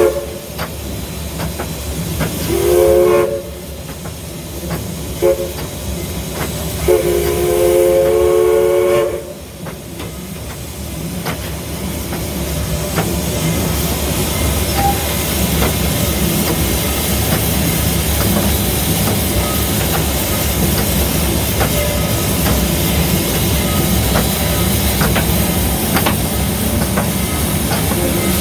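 Southern Railway 4501's steam whistle, blown in several blasts: a short one about three seconds in, a brief toot near five seconds, and a long blast of about two seconds ending near nine seconds. After that comes the steady noise of the steam locomotive running over the rails, slowly growing louder.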